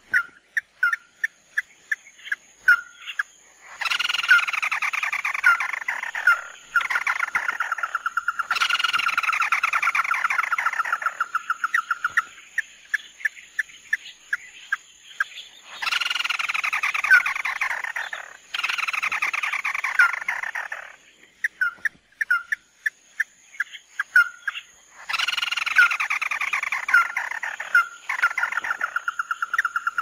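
A crake (the red-eyed 'chim mắt đỏ', or 'tí nỉ', of Vietnamese bird-keepers) calling: runs of short, sharp notes alternate with long rattling trills that fall in pitch and then level off. The pattern comes round about four times.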